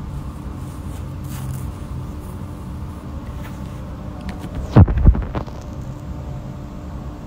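Steady low hum of room background noise, with one brief loud noise about five seconds in that drops quickly in pitch.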